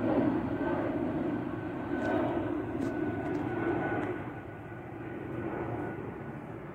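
Engine noise of an airliner flying overhead: a steady sound with a faint high whine, dropping away after about four seconds as the plane moves off.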